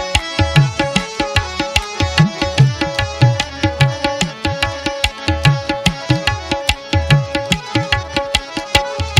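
Instrumental passage of Sufi folk music. A hand drum plays quick, steady strokes with deep bass tones that bend in pitch, under a held melodic note.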